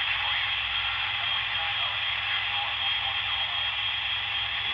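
uBITX v5 HF transceiver receiving an empty channel: steady band noise, with faint garbled traces of weak signals and interference under the hiss.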